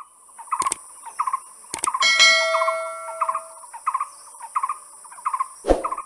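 Intro sound effects: a mouse click, then a bell ding about two seconds in that rings for a second or so, as a subscribe button is clicked. Under it runs a short chirping sound repeating about three times a second, with a steady high hiss and a few more sharp clicks.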